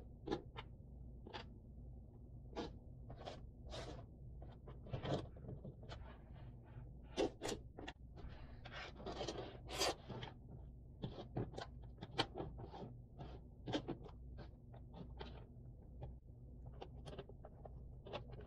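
Cardboard jigsaw puzzle pieces being handled: irregular light clicks, taps and short scrapes as pieces are slid about and pressed into place, over a faint steady hum.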